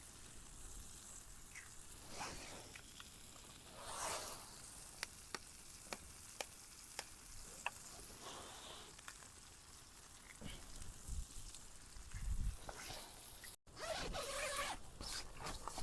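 Food sizzling and frying in a pan over a wood fire, with a steady faint hiss and frequent small sharp pops.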